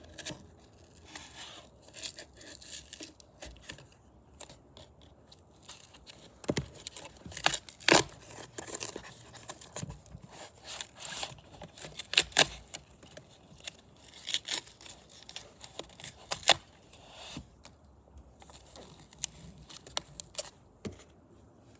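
Scissors cutting at a scooter's packaging: irregular sharp snips and clicks mixed with rustling and tearing of packing material.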